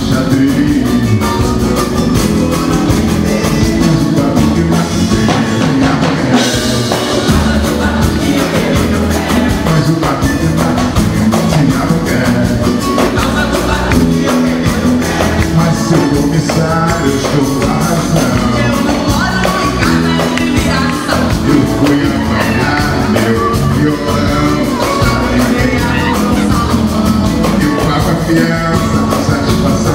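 Live samba band playing loudly, with a man singing lead into a microphone over drums and bass.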